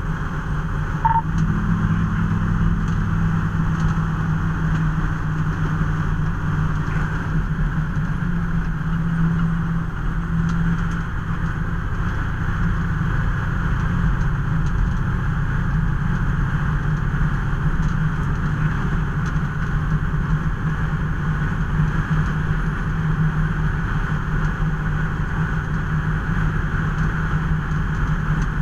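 Fire department vehicle on the road: its engine runs with a steady low drone under constant road noise.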